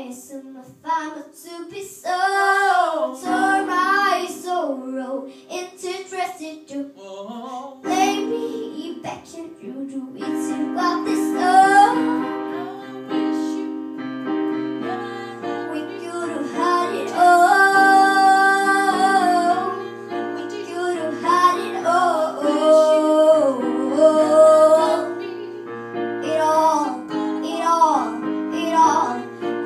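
A young girl singing a song over instrumental accompaniment, holding one long note about two-thirds of the way through.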